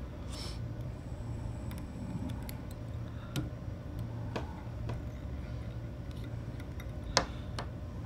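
Scattered light ticks and clicks of tying thread and a bobbin being worked around a fly hook held in a vise, the sharpest about seven seconds in, over a low steady hum.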